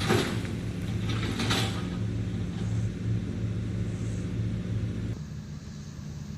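An engine idling steadily with a low, even hum, and a few brief crackles in the first couple of seconds.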